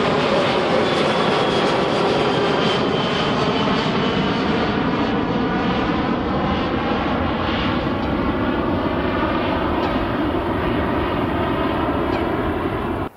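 Passenger airliner passing close by, its engines making a loud, steady rush with a faint whine that glides down in pitch as it goes by. The sharper high end fades after a few seconds as the aircraft moves away, and the sound cuts off suddenly at the end.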